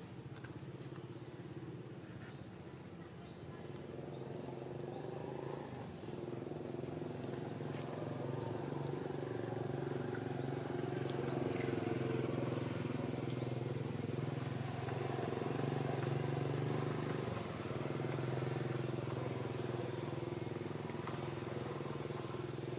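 A motor engine running, a steady low hum that grows louder over the first several seconds and dips briefly about two-thirds of the way through. Short, high, rising chirps repeat over it, roughly one a second for the first half.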